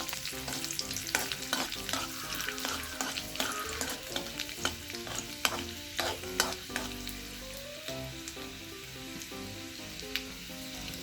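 Chopped ginger and garlic sizzling in hot oil in a pan while being stirred, with a spatula clicking against the pan every half second or so.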